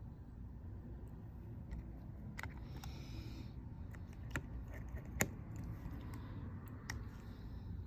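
Scattered small sharp clicks and taps of metal tools against the phone's small parts and screws, with a brief scrape about 3 seconds in, over a low steady hum.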